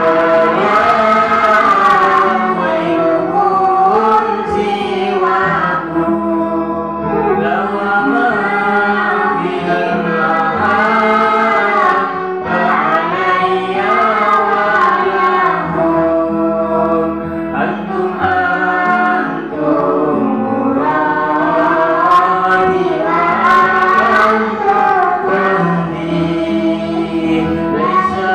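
A group of children singing together into microphones, one continuous song.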